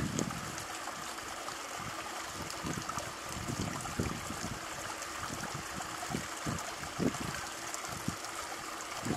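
Steady trickle of running water in a shallow otter pool, with soft, irregular small splashes as otters move and eat in the water.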